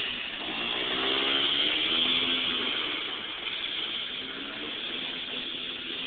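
Snowmobile engine revving, its pitch rising and falling about a second or two in, over a steady rushing noise, then growing fainter.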